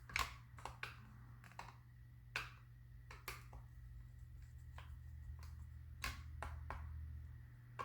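Scattered light clicks and taps, about a dozen, from the parts of a motorcycle instrument cluster being handled and fitted back together, over a low steady hum.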